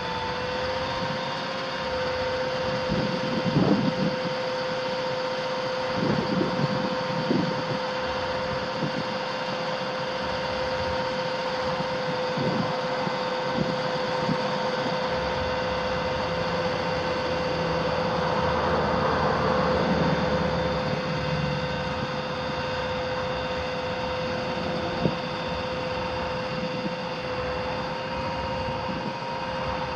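The 6.6-litre V8 diesel of a 2009 Chevrolet C5500 bucket truck running at a steady idle, with a steady whine over it. A few brief louder rumbles come in the first several seconds, and there is a single sharp click near the end.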